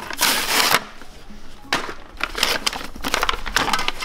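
Clear plastic blister packaging crackling and crinkling as it is torn open and pulled off a butane torch kit, in a burst near the start and a busier run of crackles through the second half.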